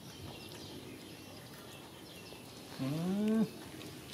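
One short call, about half a second long, rising and then falling slightly in pitch, about three seconds in, over a faint outdoor background.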